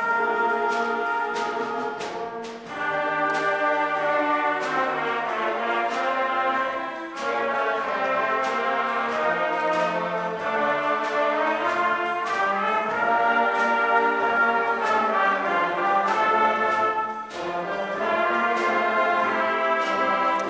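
Student concert band playing, woodwinds and brass in sustained chords that shift from phrase to phrase, with three short breaks in the sound between phrases.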